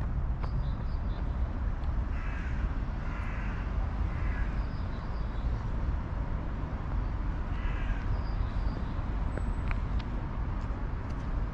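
Crows cawing: a run of harsh caws about two seconds in, another around four seconds, and more near eight seconds, over a steady low rumble.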